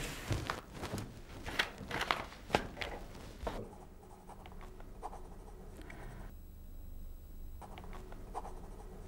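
Pen scratching across paper on a desk, with a few rustles, a quick irregular run of strokes that stops about three and a half seconds in, leaving quiet room tone with a low hum.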